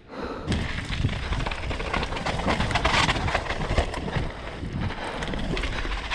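Helmet-camera sound of a downhill mountain bike being ridden hard: wind buffeting the microphone over a rumble, with rapid knocks and rattles of the bike over rough ground.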